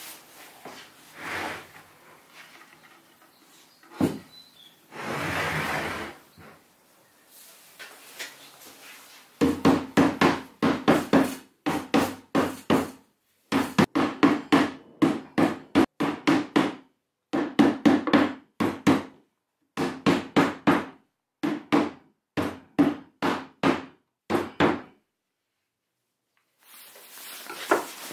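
A mallet tapping on a Baltic birch plywood side table in quick runs of sharp knocks, several a second with short pauses between runs, seating the top onto the legs. Before the knocks there are a few softer knocks and a brief scrape of the plywood being handled.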